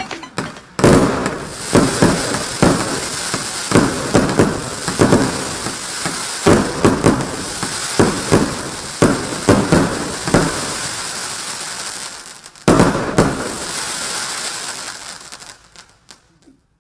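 VIP Collection 8008 Cake F, a consumer multi-shot fireworks cake, firing a rapid series of shots, about one or two bangs a second, over a steady high hiss of burning stars. One louder shot comes near the end, then the firing fades out.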